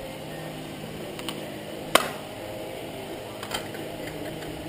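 Cast lead ingots being knocked out of an upturned muffin pan onto concrete: one sharp clack about two seconds in and a couple of lighter taps, over a steady low hum.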